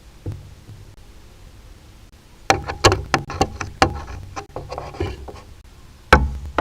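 Griffon vulture's beak knocking and scraping on the nest webcam housing, close to the microphone: a single knock, then a rapid run of sharp knocks over about three seconds, and one heavy knock near the end.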